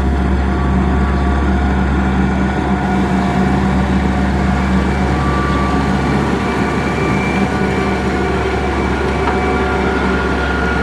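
Heavy diesel engine of road-construction machinery, likely the motor grader spreading gravel, running steadily with a deep low drone and a few faint high steady tones. The low engine note eases a little about six seconds in.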